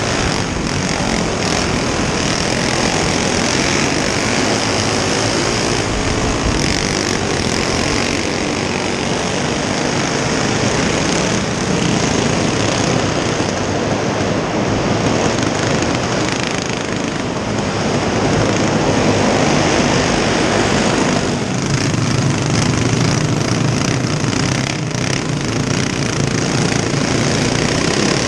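Racing go-kart engines running at race pace on a dirt track, a loud, steady engine drone with no letup.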